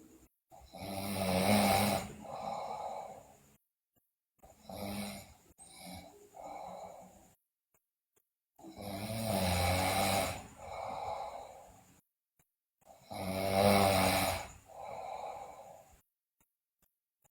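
A sleeping girl snoring loudly in slow, regular breaths: four breaths about four seconds apart, each a loud, rattling snore followed by a softer second part.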